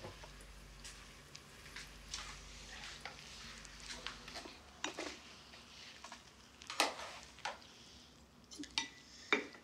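Light clinks and knocks of tableware as a frying pan and dishes are set down on a laid breakfast table, with the sharpest knocks about seven seconds in and again near the end.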